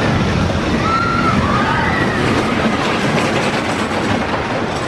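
GCI wooden roller coaster train running along its track through the wooden structure, a loud, steady rolling noise. A few short high wavering tones rise over it between about one and two seconds in.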